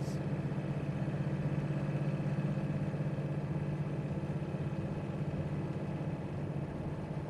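Steady low hum of a vehicle's engine and tyre noise heard from inside the cab while driving on a winter highway.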